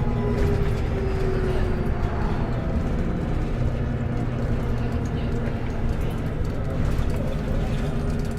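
TransBus Trident double-decker bus with a Voith gearbox running on the move, a steady low engine drone with a faint whine falling in pitch during the first second or so.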